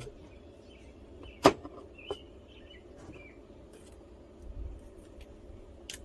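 Tools and parts being handled on a wooden workbench: one sharp clack about a second and a half in, a lighter click half a second later and another near the end, over steady background noise.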